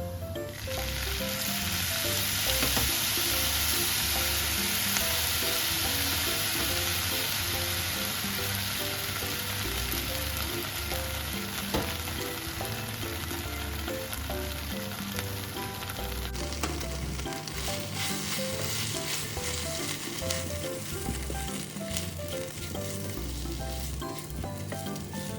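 Chikuwa and potato pieces sizzling in sesame oil in a frying pan as they are stir-fried, the sizzle easing a little after about sixteen seconds. Light background music plays throughout.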